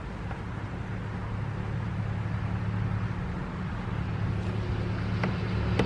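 A motor vehicle's engine running steadily, a low hum that grows slightly louder, with a couple of faint clicks near the end.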